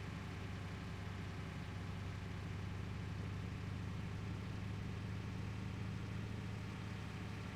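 Water tanker truck's engine running steadily, a low even hum that doesn't rise or fall.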